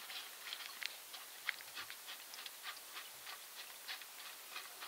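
Water splashing and small gravel stones clicking in a plastic gold pan as fingers rake through the wet sand, in short, irregular ticks and splashes.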